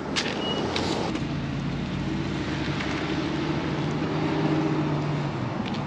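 A car's engine running at low speed with a steady low hum, over a steady rush of outdoor noise, swelling slightly past the middle.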